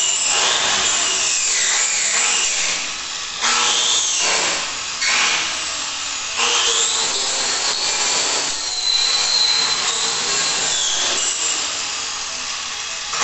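Electric angle grinder stripping paint off a bicycle frame to bare metal. Its motor whine sags and recovers several times as the disc is pressed onto the tube and eased off.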